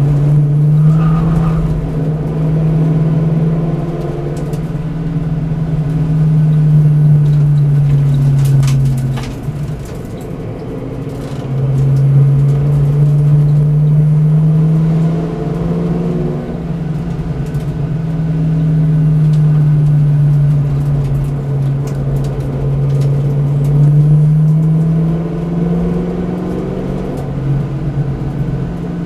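V8 Supercar race car's V8 engine, heard from inside the cabin, pulling hard in long stretches with the note rising and falling through the corners. It eases off for a couple of seconds about a third of the way in before coming back on throttle.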